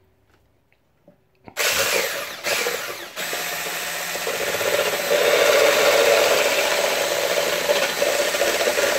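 Electric hand blender with a whisk attachment whisking almond milk and honey in a cup. It switches on about a second and a half in with a steady whir, dips briefly twice soon after, and gets a little louder about halfway through.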